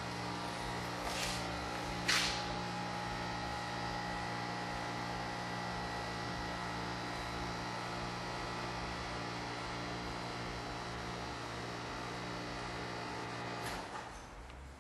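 Steady machine hum made of several level pitches, with sharp clicks about one and two seconds in. Near the end the hum cuts off abruptly with a click.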